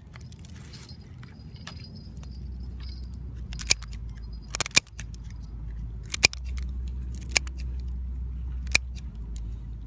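Kitchen scissors snipping through hard crab shell: several sharp snips and cracks between about four and nine seconds in, over a steady low rumble.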